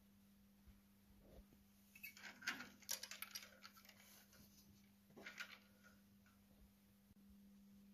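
Faint handling noise of an electrical wire being worked along an engine: scattered small clicks and rustles, densest about two to three and a half seconds in and again briefly around five seconds, over a steady low hum.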